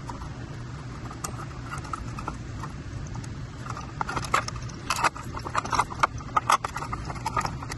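E-bike wiring harness and plastic connectors being handled and tucked into the compartment under the battery: irregular small clicks and rustling, busier in the second half.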